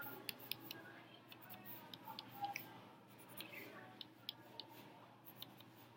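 Faint, irregular light ticks of a pencil tapping short marks onto paper along the edge of a plastic protractor, a few a second.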